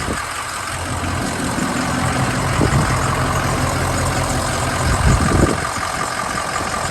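Van engine idling steadily, with a short low thump about five seconds in.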